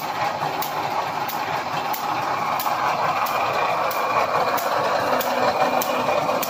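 Automatic electric spot-welding wire mesh machine running: a steady mechanical din with a sharp click repeating evenly about every two-thirds of a second as the welding head cycles.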